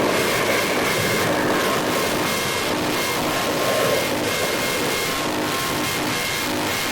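Harsh noise music: a dense, steady wall of distorted noise with a few faint held tones buried in it.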